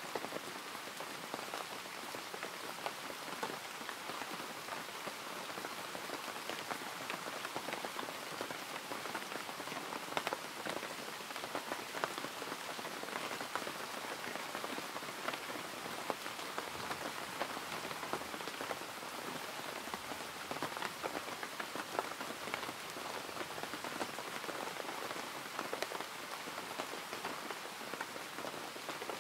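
Steady rain: an even hiss dotted with many small ticks of drops striking a surface, unchanging throughout.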